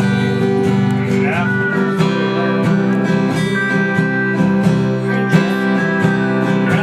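Acoustic guitar being strummed in a country song.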